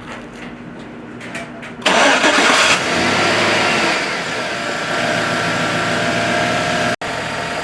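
2013 GMC Sierra's 5.3-litre V8 starting about two seconds in. It cranks and catches with a loud burst, flares up, then settles as the pitch falls to a steady idle.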